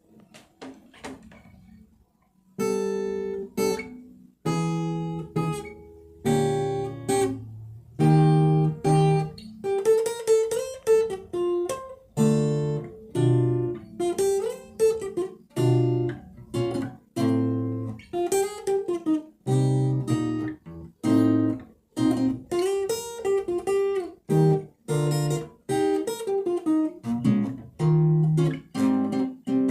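Acoustic guitar played solo, mixing struck chords with picked single-note phrases, some of them bending in pitch. It begins about two and a half seconds in, after near silence.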